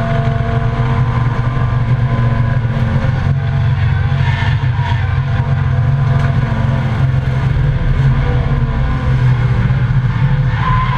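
Volvo 855 race car's inline five-cylinder engine heard from inside the cabin, running hard at fairly steady revs, with road and wind noise. A high steady tone joins near the end.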